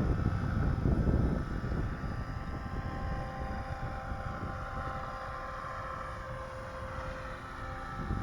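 Radio-controlled aircraft's motor whining steadily in flight, its pitch drifting slightly, with wind buffeting the microphone, strongest in the first second or so.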